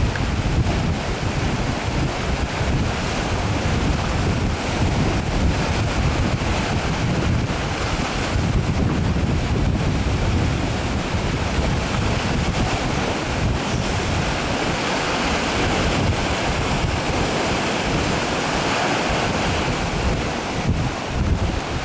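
Wind buffeting the microphone in irregular gusts over a steady rush of sea water, the water noise a little brighter in the second half.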